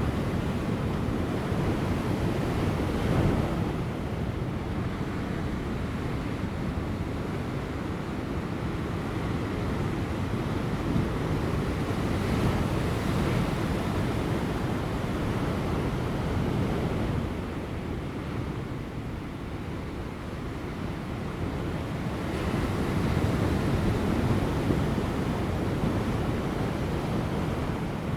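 Ocean waves breaking on rocks, a continuous deep rush that swells as waves come in, loudest about three seconds in, around twelve seconds and again from about twenty-two seconds, with a quieter lull between. Light wind buffets the microphone.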